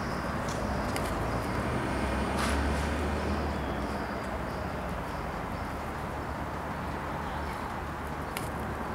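Steady background noise of an outdoor lot, mostly a low rumble with a light hiss, swelling briefly about two and a half seconds in. A few faint clicks and knocks sound once near the start, mid-way and near the end.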